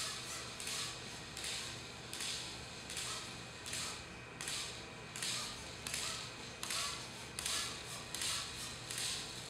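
Salto-1P, a small single-legged jumping robot, hopping repeatedly: a short rush of high-pitched whirring and scuffing comes with each hop, about every three quarters of a second.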